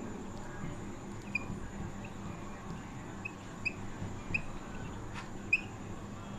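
Whiteboard marker squeaking as it writes: short high squeaks of much the same pitch, coming irregularly about once or twice a second, over a faint room hum.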